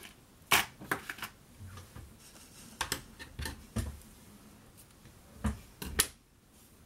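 Hands fetching and handling craft supplies, making a scattered series of sharp clicks and light knocks, about half a dozen, with the loudest about half a second in and again near the end.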